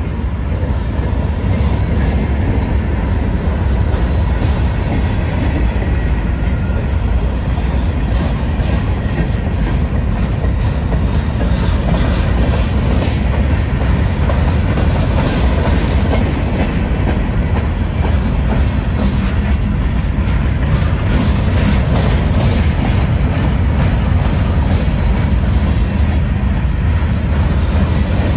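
Norfolk Southern freight train cars rolling past close by: a steady, loud low rumble with repeated clicking from the wheels on the rails.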